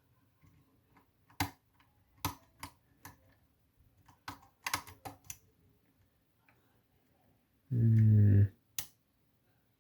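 A lock pick clicking and tapping against the pins inside a pin-tumbler lock as it is worked in, a scatter of sharp light clicks coming singly and in quick clusters. A brief low hum, the loudest sound, comes near the end, followed by one more click.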